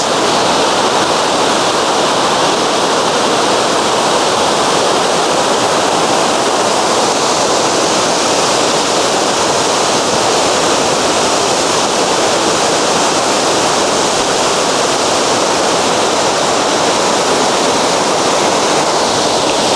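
Waterfall: water pouring down, a loud, steady rush of falling water.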